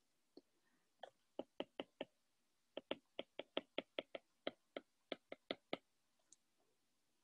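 Faint, sharp clicks of a stylus tip striking an iPad's glass screen while writing by hand: a few clicks about a second in, then a quick run of about fifteen, roughly five a second, stopping near six seconds.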